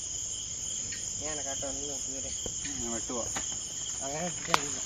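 Crickets trilling steadily in a high, continuous drone, with faint distant voices under it and a single sharp click near the end.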